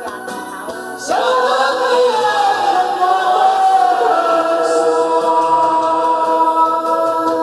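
A man and a woman singing a karaoke duet chorus line together over a recorded backing track, coming in about a second in and holding long, wavering notes.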